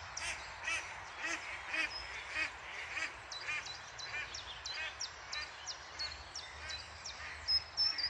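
Birds calling: a run of short harsh calls repeated about twice a second, over many thin, high chirps from small songbirds.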